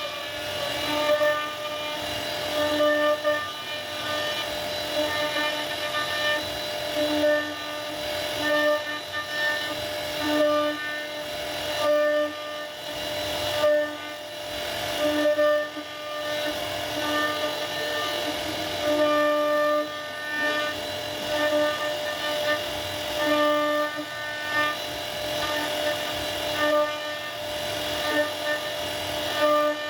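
CNC router spindle whining at a steady pitch while the bit carves wood, the whine swelling every second or two as the cut loads it, over a hiss of cutting noise.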